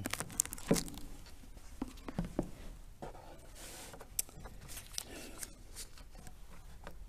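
Sheets of paper rustling and sliding as they are handled, with scattered small clicks and taps.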